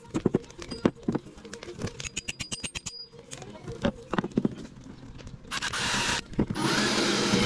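Knocks and scrapes of a cold chisel working on a steel axe head, picking out the remains of the old wooden handle; then, about five and a half seconds in, a cordless drill runs twice, briefly and then steadily, boring out the wood left in the axe eye.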